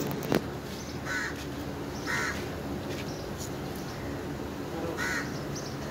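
Crows cawing: three short caws spread over the few seconds, over a steady low hum. A single sharp knock sounds about a third of a second in.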